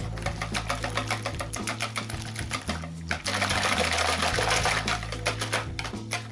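Metal wire whisk beating eggs in a bowl: a rapid run of rattling clicks as the wires strike the bowl. About three seconds in it becomes a denser, louder swishing for a couple of seconds, then goes back to clicking. Background music plays underneath.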